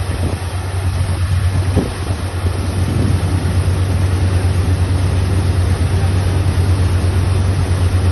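Tractor engine running steadily with an even low drone while a tank is being emptied.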